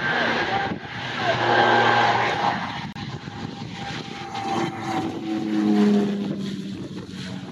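Cessna 441 Conquest II twin turboprop (Garrett TPE331 engines) climbing out after takeoff at high power. Its humming tones drop lower as it passes over.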